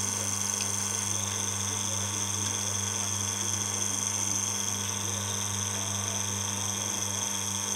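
Reverse-osmosis system's booster pump running with a steady hum, with a thin, steady high whine above it.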